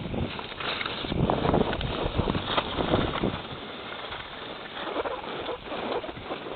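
Skis scraping over packed snow on a downhill run, mixed with wind buffeting the phone's microphone; the noise comes in uneven surges every second or so.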